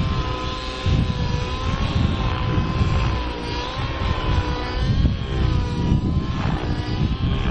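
Engine of a radio-controlled scale Zero model running in flight: a steady drone whose pitch wavers gently up and down as the plane manoeuvres.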